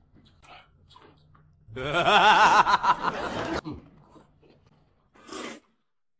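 A person's voice in a drawn-out, wavering vocal sound for about two seconds, its pitch wobbling up and down, with short slurps of rice noodles before it and another slurp near the end.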